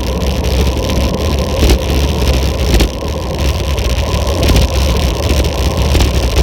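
Steady wind rumble and road noise on a bike-mounted camera during a fast downhill ride, loud and unbroken.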